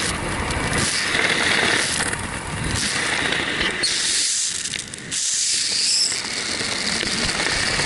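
Airflow buffeting the camera's microphone during a descent under an open parachute canopy: a rushing, crackling wind noise that eases for a moment about four seconds in.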